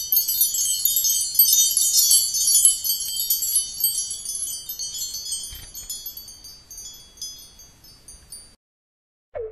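A shimmering shower of high, tinkling chime tones, like a magic-sparkle or wind-chime sound effect. It is dense at first, then thins out and fades away a little before the end.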